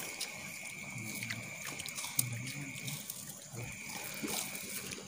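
A group of people eating rice and buffalo-skin krupuk crackers by hand from a long communal spread: light crunching and small clicks with faint low voices. Under it runs a steady high-pitched whine that breaks off for about half a second around three seconds in.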